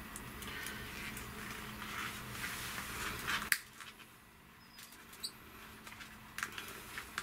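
Faint rustling of gloved hands working a thick copper cable, with a few small clicks as side cutters snip strands off its frayed end. The rustling is louder in the first half, a sharp click comes about three and a half seconds in, and a few softer clicks follow.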